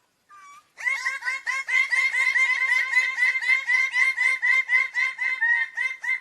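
Bird-of-paradise calling: one short note, then a long rapid run of loud, repeated calls, about four or five a second.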